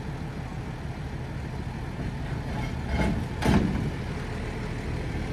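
Case International 1455 tractor's diesel engine running steadily while the rear linkage is raised to lift a hydraulic yard brush. There is a short louder noise about three and a half seconds in.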